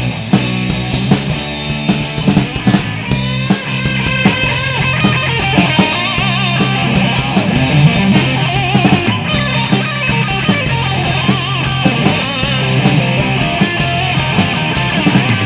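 Rock band playing an instrumental break: an electric guitar lead with bent, wavering notes comes in about three seconds in, over a steady drum kit and bass.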